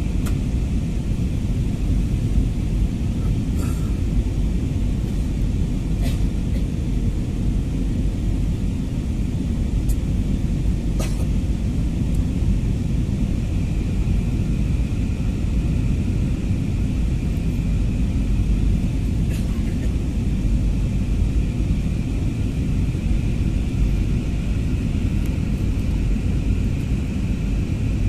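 Steady cabin noise of a jet airliner in flight, heard from inside the passenger cabin: a constant low rumble of engines and airflow.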